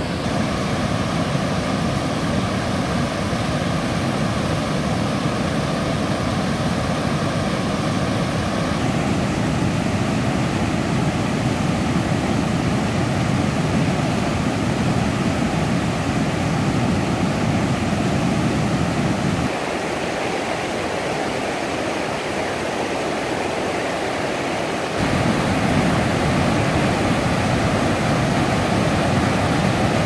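Steady rushing roar of a rain-swollen river in flood, muddy water churning in whitewater as it pours over a low weir. The deep part of the rumble drops away for a few seconds around twenty seconds in, then returns a little louder.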